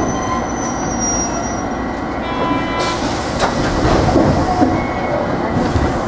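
Hiroshima Electric Railway 3700-series resistance-controlled tram running, heard from on board: steady wheel-on-rail rolling noise with the traction motors barely audible. A short high squeal comes about two seconds in, followed by several sharp knocks.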